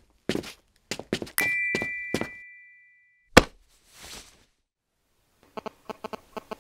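Footsteps, with a two-tone chime ringing out about a second and a half in and fading away over the next second and a half while the steps go on. A single sharp, loud thump follows about three and a half seconds in, then a short hiss, and near the end a fast pulsing emergency-alert tone begins.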